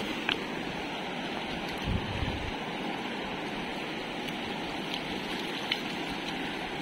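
Fast-flowing, shallow river rushing over a stony bed in a steady rush of water; the current is strong enough to push a person over. A brief low bump comes about two seconds in.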